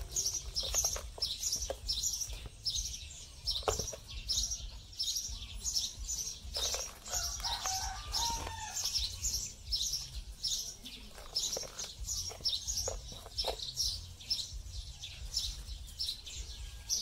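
A bird chirping over and over in short high notes, about three a second, with a low rumble underneath. A few soft knocks and rustles come from hands working soil in a plastic bucket.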